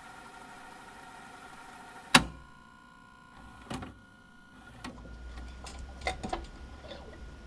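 Metal-on-metal clanks while the power head of a small Mercury outboard is unbolted and lifted off. A steady hum stops at one loud, sharp clank with a short ring about two seconds in, followed by several lighter knocks and clinks of parts and tools.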